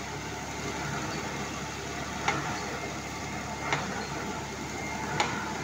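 Engine on a sand-pile boring rig running steadily, with a sharp short knock about every second and a half, three times.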